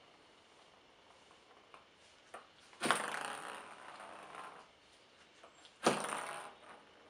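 A small spinning object clattering on a wooden surface, twice: about three seconds in a sudden rattle that dies away over a second and a half as it spins and rolls, and near the end a shorter one that fades within a second.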